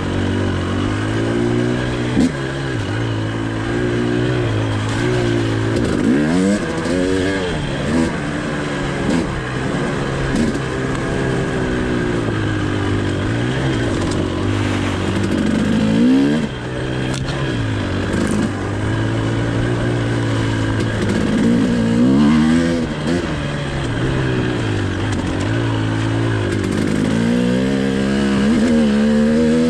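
Two-stroke 300cc dirt bike engine, a fuel-injected Husqvarna TE 300i, running under a rider's throttle: its pitch rises and falls again and again every second or two as it is revved and backed off.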